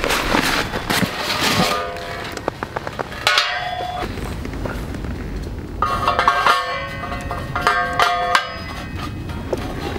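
Steel panels of a Hills Field Free-za fire pit clanking together as it is fitted up, in a few bouts of sharp metal strikes that ring on with a bell-like tone, between lighter clicks and knocks.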